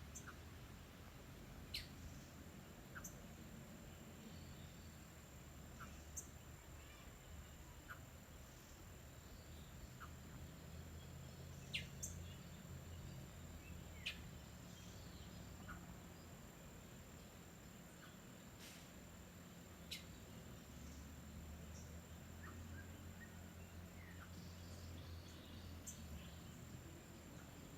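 Faint, scattered wild bird calls: short, sharp downward-sweeping chips every one to three seconds, over a steady thin high-pitched tone and a low background rumble.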